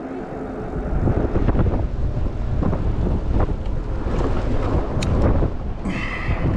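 Wind buffeting the microphone of a camera on a moving electric bike, a steady low rumbling rush.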